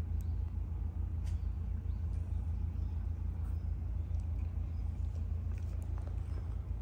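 Steady low rumble of wind buffeting the microphone, with a few faint short high chirps scattered through it.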